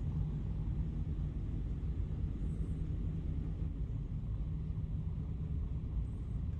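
Steady low rumbling hum of the ferry's onboard machinery, carried through the hull into a small cabin, with a few faint steady low tones in it and no change throughout.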